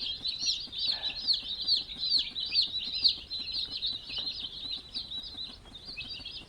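A brood of three-day-old buff Orpington and Sussex chicks peeping without pause, many short high cheeps overlapping into a constant chorus.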